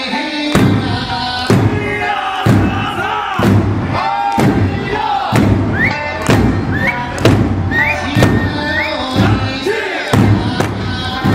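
Eisa drumming: a large barrel drum (ōdaiko) and small hand-held drums struck together about once a second over a sung folk-song accompaniment, with the dancers' shouted calls.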